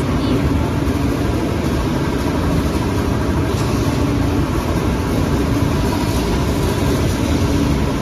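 Two-deck mesh veneer dryer running: a loud, steady machine drone from its hot-air circulation fans and mesh conveyor, with a steady hum.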